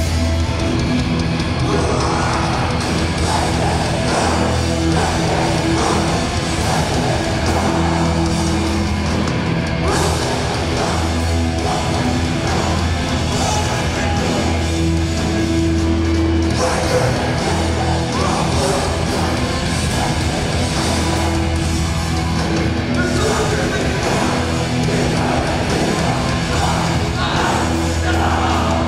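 Hardcore punk band playing live at full volume: guitars, bass and drums, with shouted vocals.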